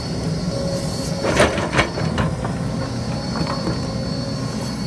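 Excavator diesel engine running steadily, with sharp metallic clanks: three in quick succession a little over a second in, then fainter ones around the middle.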